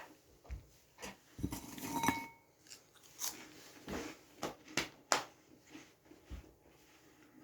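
A mouthful of dry crackers being chewed, with scattered short crunches and clicks.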